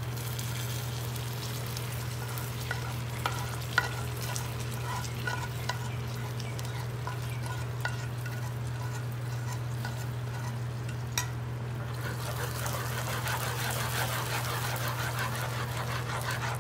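Metal spoon scraping and tapping a frying pan as melted caramelized sugar is poured into a pan of hot custard, giving a few sharp clicks. In the last few seconds a ladle stirs the caramel into the custard with a fine crackle. A steady low hum runs underneath.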